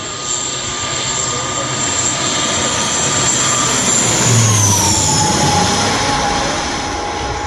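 Propeller airliner passing low overhead on its landing approach: a loud engine and propeller whine over a rushing roar that swells to a peak. About four and a half seconds in, the whine drops in pitch as the plane goes past.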